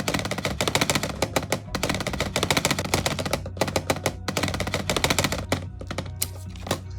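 Close-up crunching of cheese popcorn being chewed: dense, irregular crackles, many a second, over a faint steady musical backing. The crunching stops just before the end, leaving the music alone.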